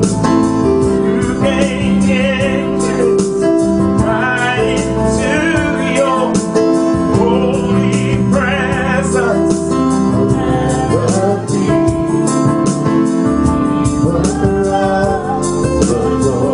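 Gospel singing: a solo voice with wide vibrato over sustained accompanying chords that change every second or two.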